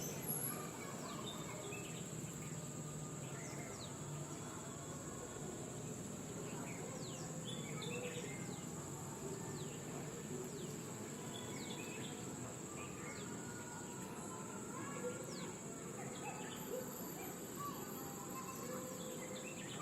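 Outdoor ambience: a steady high-pitched insect drone with short bird chirps scattered throughout, over a low background hum.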